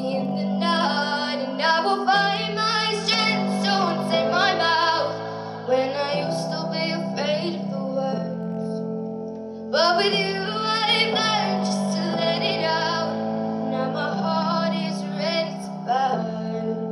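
Teenage girl singing solo into a handheld microphone over sustained accompaniment chords, with a short break in the voice about halfway through before she picks up the next phrase.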